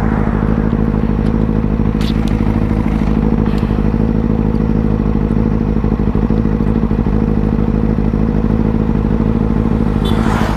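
Motorcycle engine idling steadily at a standstill, with a couple of faint clicks about two and three and a half seconds in.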